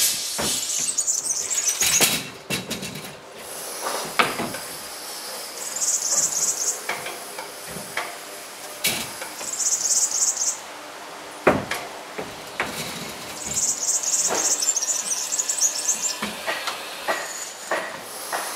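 Knocks and clatter from a folding step ladder being set against the coping of a wooden mini ramp and climbed, along with footsteps on the ramp and a skateboard being handled, with several sharp single knocks. In between come a few bursts of high-pitched chirping, each a second or two long.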